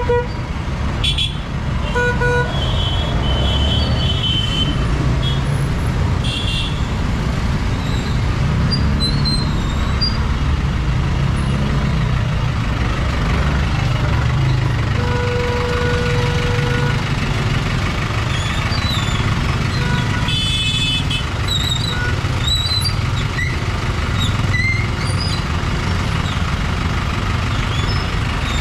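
Busy street traffic: motor vehicle engines running close by, with short horn toots and one horn held for about two seconds past the middle.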